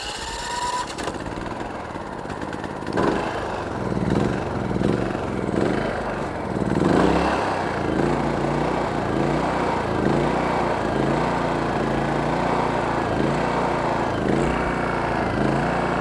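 WEN DF400i inverter generator's 212cc four-stroke engine just started on gasoline with the choke on, running unevenly with several surges in its first seconds, then settling into a steady run.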